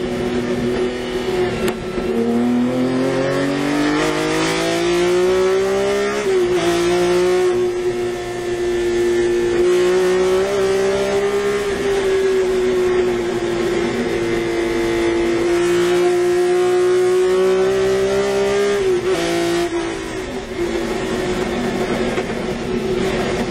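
BMW M1 race car's straight-six engine heard from the cockpit under hard acceleration. The note climbs for a few seconds, dips briefly with an upshift about six seconds in, then holds high and nearly steady. Near the end it drops away as the driver lifts and slows for a corner, then begins to climb again.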